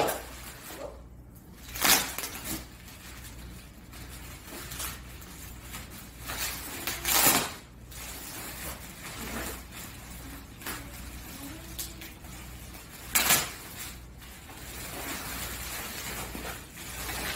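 Bubble wrap being handled and pulled open by hand: a running plastic rustle and crinkle, with a few louder crackling bursts.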